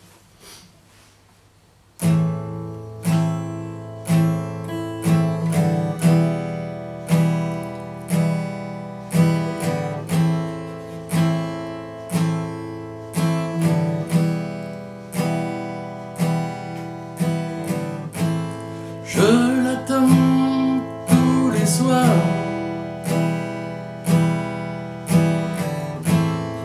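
Steel-string acoustic guitar playing a song's introduction: chords begin about two seconds in and are strummed in a steady rhythm, with a strong stroke roughly once a second.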